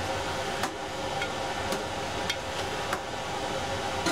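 Metal tongs clicking and tapping, about once every half second, as boiled potatoes are lifted and set onto a ceramic plate, over a steady machine hum.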